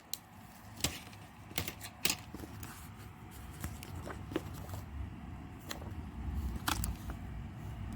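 Plastic CD cases and packaging being handled: scattered sharp clicks and taps, about eight spread over several seconds, over a low background rumble.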